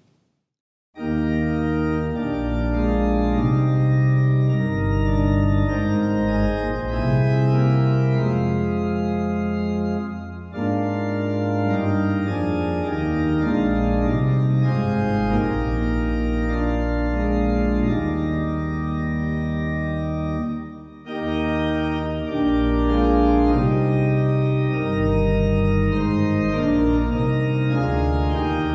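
Organ playing a hymn in sustained chords. It begins about a second in, with short breaks between phrases at about ten and twenty-one seconds.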